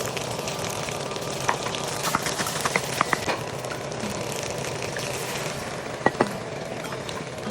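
Fried rice ingredients sizzling in hot oil in a pan, a steady hiss, with sharp clicks and taps of a utensil stirring against the pan, clustered around two to three seconds in and again just after six seconds.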